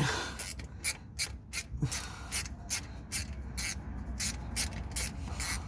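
Ratchet spanner clicking through short, uneven strokes, about two or three a second, working a bolt on the axle, after a sharp knock at the very start.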